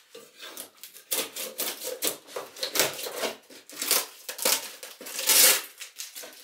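Clear packing tape being slit with a metal putty knife and peeled off a plywood crate: an irregular run of scratchy scrapes and rips, loudest near the end.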